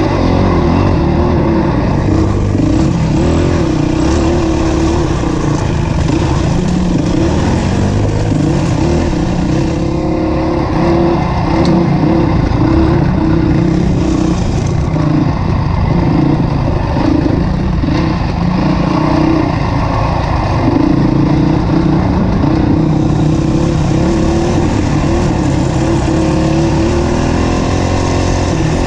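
Dirt bike engine heard up close from the bike being ridden, its pitch rising and falling as the throttle is opened and eased over a wooded trail.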